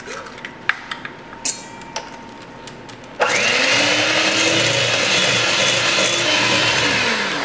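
Electric hand mixer starting about three seconds in and running steadily, its beaters churning a thick almond-paste, butter, sugar and egg batter in a stainless steel bowl; its pitch rises as it spins up and drops as it is switched off near the end. A few light clicks and taps come before it starts.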